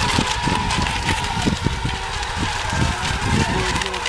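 Radio-controlled racing boats running flat out on the water, giving a steady high whine that wavers slightly in pitch. Irregular low buffeting on the microphone runs underneath it.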